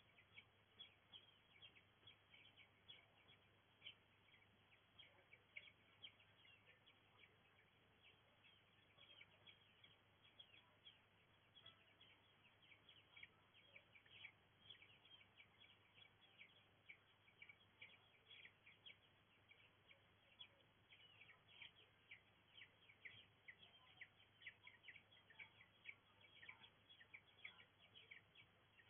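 Faint chorus of small birds, many short chirps in quick succession throughout, over a steady low hum.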